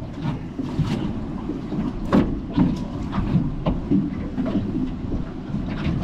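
Steady wind and water noise around a small aluminium boat drifting on choppy sea, with a few brief sharp knocks; the loudest comes about two seconds in.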